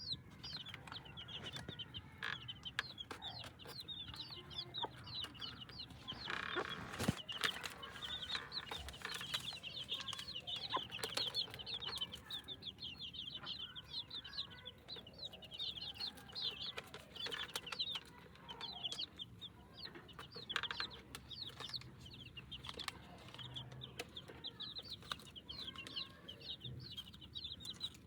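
A brood of young chicks peeping continuously in quick, high chirps, with a hen clucking now and then. There is a single knock about seven seconds in.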